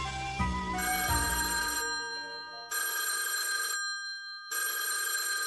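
A short run of musical notes, then an electric doorbell ringing twice: a long steady ring of about two seconds, a short pause, then a shorter ring.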